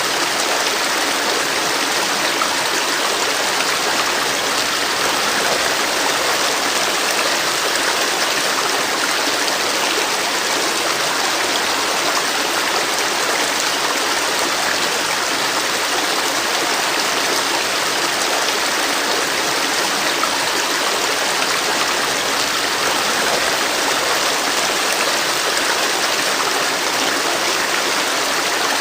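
River water flowing and splashing over rocks: a steady, even rush with no breaks or changes.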